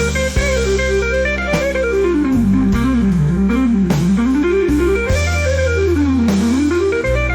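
AI-generated instrumental blues music, its lead line running quickly down and back up in repeated zigzag runs over steady sustained bass notes.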